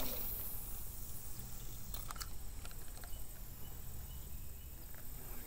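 Quiet outdoor ambience with a faint, steady insect hum and a couple of faint clicks about two seconds in.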